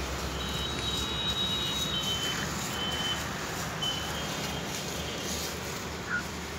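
Several high-pitched, steady beeping tones of uneven length, sounding on and off through the first half or so, over a steady outdoor background hiss.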